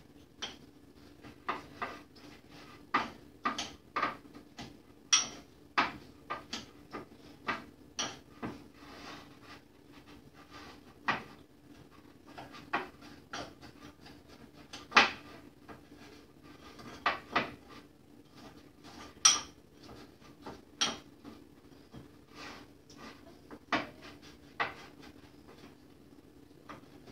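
A spoon crushing graham crackers into crumbs in a small bowl: irregular sharp taps and crunches of the spoon against the container, a few every couple of seconds.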